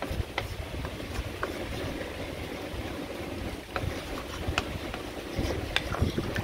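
Wooden spatula stirring pork belly stew in a large aluminium pot, knocking and scraping against the pot several times, over a steady low rumble.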